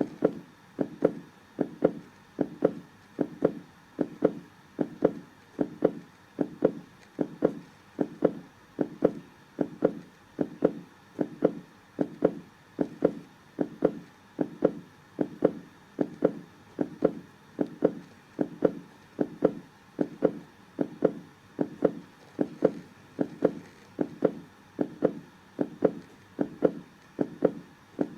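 Heartbeat: a steady lub-dub rhythm of paired low thumps, a little over one beat a second.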